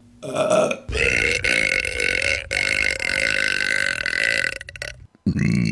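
A woman burping: a short burp, then one long drawn-out burp lasting about three and a half seconds. A new burp starts just before the end.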